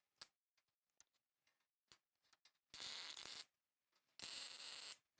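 Two short tack welds on a steel bumper, each a crackling hiss lasting under a second, about a second and a half apart. Small clicks from handling the parts and clamps come before them.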